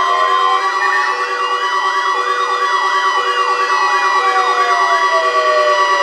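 Several NOAA weather radio receivers alarming at once for a Required Weekly Test: steady electronic tones, a beep pulsing about once a second, and siren-like warbling with slow rising-and-falling wails layered over one another.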